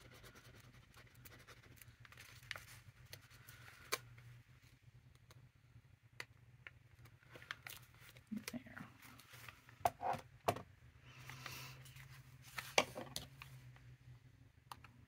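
Small handling sounds at a craft table: scattered taps and rustles of paper and fabric while lace is glued onto a paper heart, then scissors snipping the fabric trim near the end.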